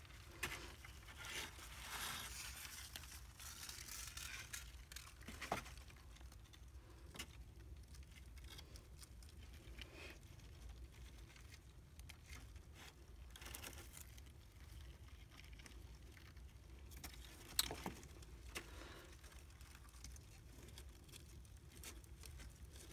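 Faint rustling and crinkling of a cloth shipping bag being handled and shaken out over cardboard egg crates, with scattered light clicks and taps and one sharper click about two-thirds of the way through.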